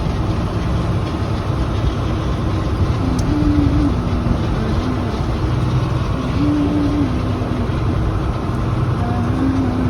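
John Deere 4440 tractor's six-cylinder turbo diesel engine running steadily under way, heard from inside the cab, with a faint whine that steps up and down in pitch now and then.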